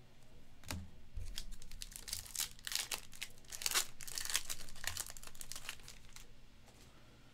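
Crinkling and rustling of a thin clear plastic card sleeve as a trading card is handled and slid into it, in quick irregular crackles that are busiest in the middle and die away near the end.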